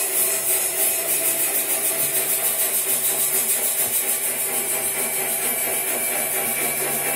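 Electroacoustic live-electronics music: a grainy, rasping noise texture pulsing evenly several times a second over sustained low drone tones.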